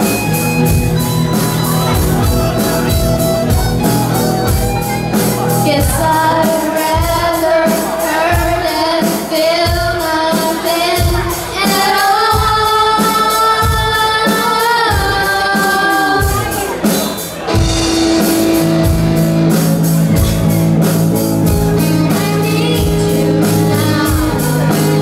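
Live rock band playing: female vocals over electric guitars, bass and a steady drum beat, with long held sung notes about halfway through.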